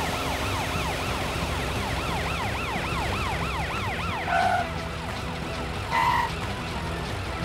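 Cartoon police car siren yelping fast, about three wails a second, then cutting off about four seconds in. Two short, loud horn honks follow, about a second and a half apart.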